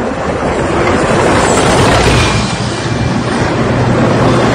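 Steady loud rush of road and wind noise in a moving car as a column of tanks and tracked armoured vehicles passes close by, under a low steady engine drone.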